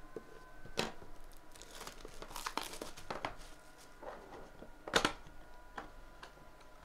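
Plastic shrink wrap being torn and crinkled off a sealed trading-card box, in irregular rustles with the loudest rip about five seconds in.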